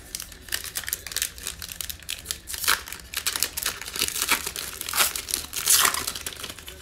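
Foil wrapper of a 2020 Illusions football card pack being torn open and pulled apart by hand: a dense run of sharp crinkling crackles, loudest bursts about midway and again near the end.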